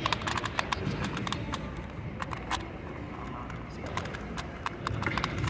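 Rapid, irregular plastic clicking of a Rubik's Clock puzzle being worked during a solve, thinning out after about two and a half seconds, over a background murmur of voices.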